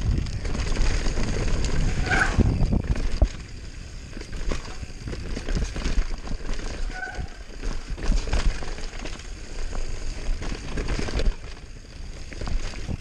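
Giant Glory downhill mountain bike ridden fast down a dirt trail: wind buffeting the camera microphone, tyres rolling over dirt, and the bike rattling with many sharp knocks over bumps. It is loudest at first and quietens about three seconds in.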